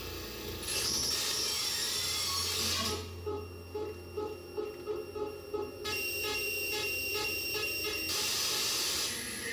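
Extract of a students' electroacoustic composition played over loudspeakers. A wash of hissing noise with sweeping glides in pitch gives way, about three seconds in, to a run of electronic pulsing beeps, about two a second, and then returns to the hiss near the end.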